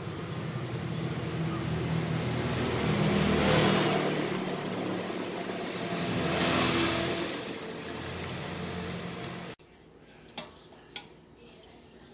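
Steady motor-vehicle engine and traffic noise with a low hum, swelling louder twice as if vehicles pass; it cuts off suddenly near the end, leaving a few faint clicks.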